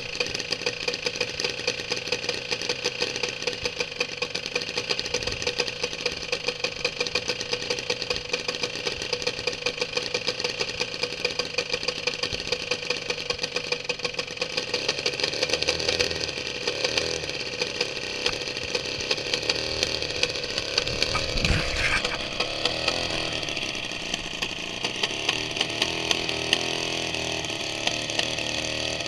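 Homemade 200cc inline-twin Husqvarna ('Husky') engine running steadily on a test stand and spinning a propeller. Its note shifts about halfway through, and there is a single sharp knock a little later.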